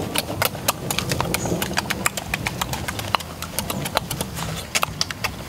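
Open-mouthed chewing and lip smacking from people eating: a quick, uneven run of wet mouth clicks, several a second.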